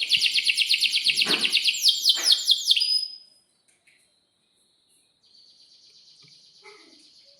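Domestic canary singing: a loud, rapid roll of repeated high notes that ends in a few downward-sweeping notes and stops about three seconds in, then a fainter trill starts again near the end.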